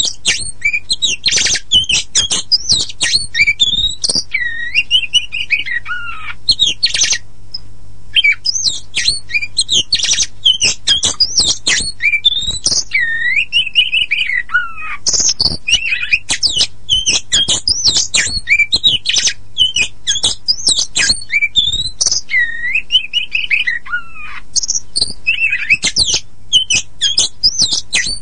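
Oriental magpie-robin (kacer poci) in full song: a fast, nearly unbroken run of clear whistles gliding up and down, mixed with harsh scratchy and chattering notes, with only a brief pause about seven seconds in. This is the bird's loud, vigorous singing, used to lure other kacer birds into singing.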